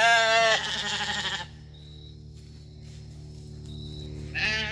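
Sheep bleating: a long quavering bleat at the start, then a second bleat near the end.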